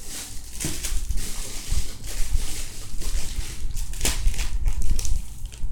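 Rustling and handling noise as a pile of foam squishy toys is tipped out onto a cloth cover, with a sharp knock about half a second in and another about four seconds in.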